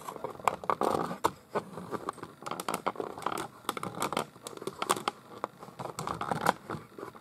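Handling noise from a camera being raised and adjusted on a tripod: irregular clicks and scrapes, several a second.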